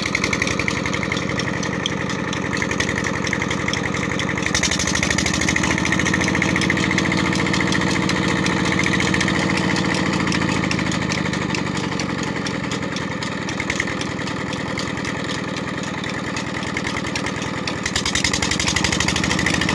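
A 16 hp Ghazi single-cylinder diesel engine running steadily under load, belt-driving an irrigation water pump. Its fast, even firing beat holds constant, and the sound grows slightly brighter about four seconds in.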